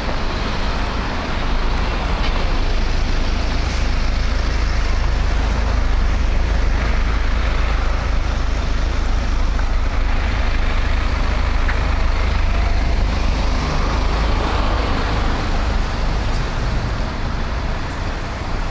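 Steady city street traffic noise with a deep low rumble.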